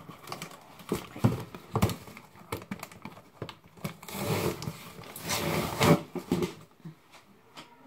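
Packing tape being peeled and ripped off a cardboard box, with taps and scrapes of hands on the cardboard. Two longer ripping stretches come about four seconds in and again just before six seconds.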